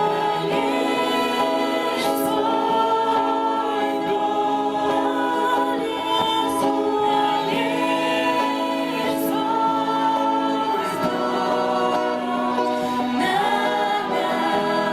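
A group of voices singing a Christian worship song in long, sustained held chords.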